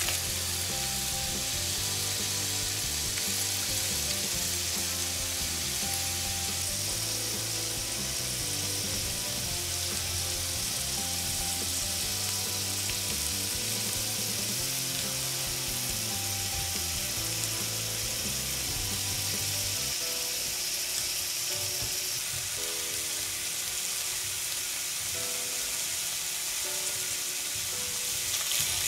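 Mushrooms sizzling steadily as they fry in a tiny pan on a working miniature toy stove. Soft background music plays underneath and stops about two-thirds of the way through.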